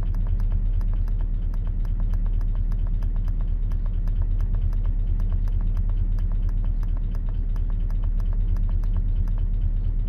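2004 Chevrolet Silverado's 5.3-litre V8 idling at about 525 rpm with a steady, even tapping about four times a second. The tapping is the sign of oil starvation: there is no oil on the dipstick and oil pressure reads only about 5 to 8 psi.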